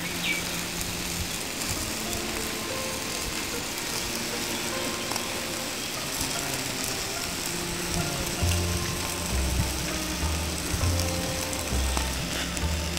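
Fish roasting on hooks over hot embers, with a steady sizzling crackle. Background music runs along with it, and a heavy low beat comes in about eight seconds in.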